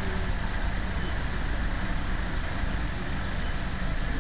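Steady low rumble of outdoor background noise, with no distinct pecking or bird calls standing out.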